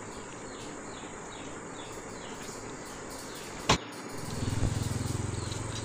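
Faint outdoor background with light high chirps, broken by a sharp click about two-thirds of the way in. After it, a motorcycle engine's low hum swells as it passes.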